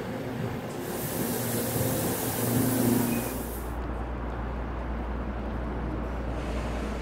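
A Korail electric multiple-unit commuter train pulls into the platform, its motors giving a steady whine and its air system letting out a long hiss. About three seconds in, this gives way to a steady low hum of platform ambience.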